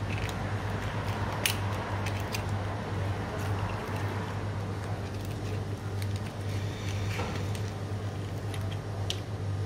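Gloved hands working a coiled recoil-starter spring and a binder clip into a pull-starter housing: soft rubbing and handling noise with a few small sharp clicks, over a steady low hum.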